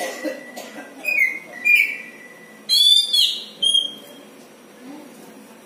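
Oriental magpie-robin (kacer) calling: a string of loud whistled notes, some opening with a fast rattle, the loudest about three seconds in.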